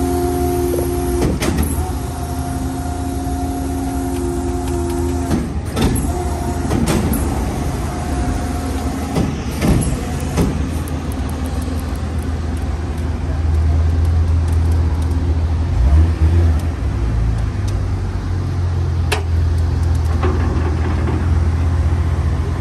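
Vehicle engines running during the unloading of a car from a car-carrier truck. A steady whine runs for about the first five seconds, then a deeper engine rumble grows louder about halfway through, with a few metallic clanks scattered throughout.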